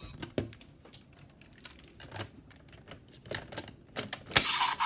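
Plastic toy parts clicking and clacking as Raise Buckles are handled and slotted into a DX Desire Driver transformation belt, a string of separate sharp clicks with the loudest snap a little past four seconds in.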